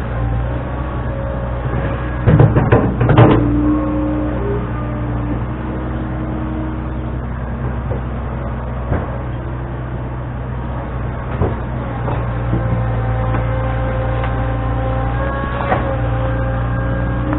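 Front-end loader engine running steadily while moving dirt, with a burst of loud clanking about two to three seconds in and a few single knocks later.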